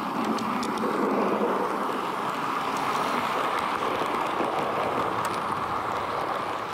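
H0-scale model train running on the layout's track: a steady rolling rumble of small wheels on the rails, with a few faint clicks.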